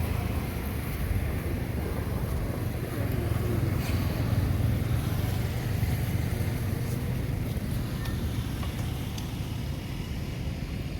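A steady low rumble of outdoor background noise, with a few faint clicks.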